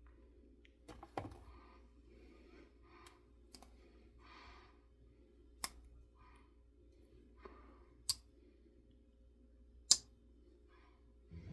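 Quiet room with soft rustling handling sounds and four short sharp clicks, about 1, 5½, 8 and 10 seconds in, the last the loudest.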